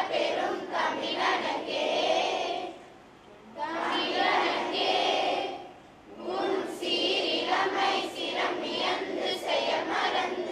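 A group of children singing a song in unison, in long phrases broken by two short pauses.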